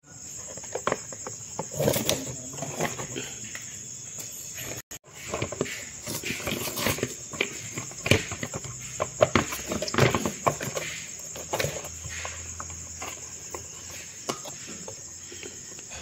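Scattered clicks and knocks of plastic parts being handled while a refrigerator's fan motor is taken out of its plastic mount, over a steady high chirping of crickets.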